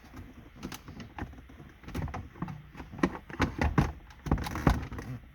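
Irregular plastic clicks and knocks as the Uconnect head unit and dash trim are lowered and fitted into the Ram 1500 dashboard, with the loudest knocks clustered from about three seconds in.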